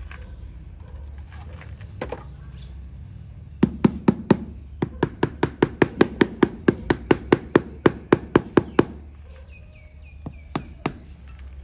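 Rubber mallet tapping a large marble-look wall tile to bed it into the mortar. After a few knocks comes an even run of about four taps a second, lasting some four seconds, then two more taps near the end.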